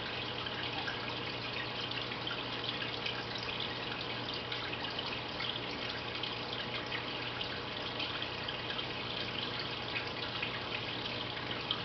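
Aquarium water trickling and splashing steadily, as from a filter's return flow or air bubbling, with many small drips and a low steady hum underneath.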